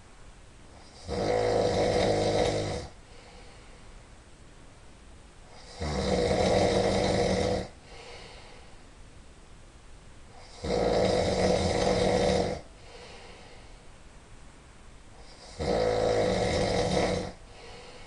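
A man snoring loudly: four long snores about five seconds apart, each lasting just under two seconds.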